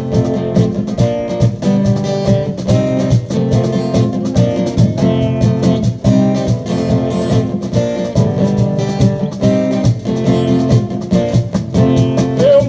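Carnival marchinha band playing an instrumental break, with strummed guitar over a steady, lively beat.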